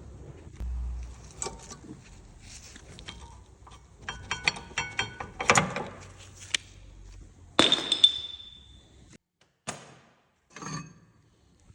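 Metal hand tools clinking and knocking against brake parts: scattered clicks, a quick run of clicks about four seconds in, a louder knock, then a sharp ringing metal clink near eight seconds.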